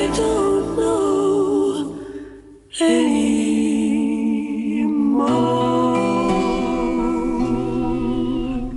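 1960s pop record: a woman singing held notes with vibrato over instrumental backing, with a brief drop in level about two and a half seconds in.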